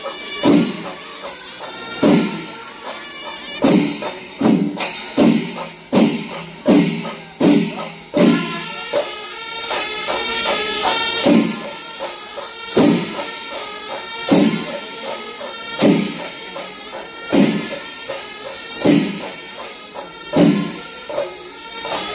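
Kerala temple melam: chenda drums beating a heavy, regular stroke over the continuous clash of ilathalam hand cymbals. The strokes come about every 0.7 s at first and space out to about one every 1.5 s in the second half, with high wavering notes joining through the middle.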